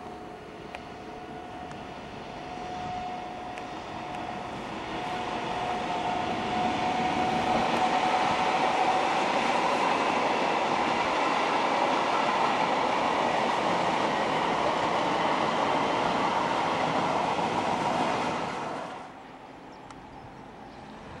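A white high-speed multiple-unit train passing at speed. Its running noise grows louder over the first eight seconds, carrying a thin whine that rises slightly in pitch. The noise holds steady, then drops away suddenly about nineteen seconds in.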